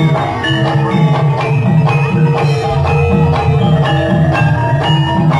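Javanese gamelan music: bronze metallophones and gongs struck about twice a second with a ringing tone, over quick kendang drum strokes.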